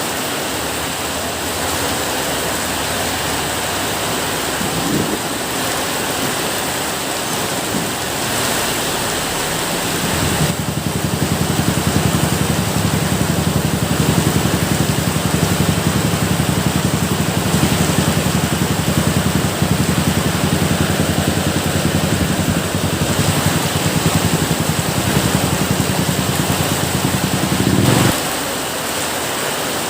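Steady rain, an even hiss. About ten seconds in a low rumble joins it, and it stops abruptly near the end.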